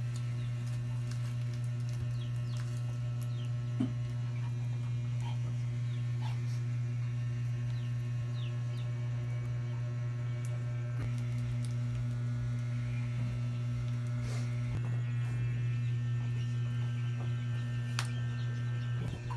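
A steady low electrical hum, with faint brief chirps in the background, a soft knock about four seconds in and a few knocks near the end.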